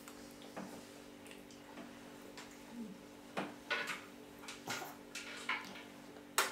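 Light clicks and scrapes of a plastic baby spoon against a plate of food during spoon-feeding: about eight short sharp ticks at uneven spacing, over a faint steady hum.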